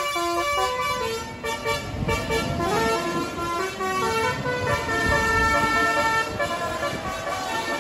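A tour bus's Basuri 'telolet' musical horn playing a tune of short stepped notes, one held longer past the middle, over the low rumble of the bus engine.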